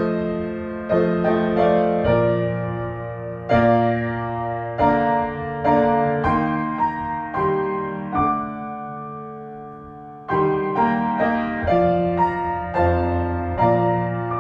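Solo piano playing slow music: chords and melody notes struck every half second to a second or so, each left to ring and fade, with a longer held chord in the middle.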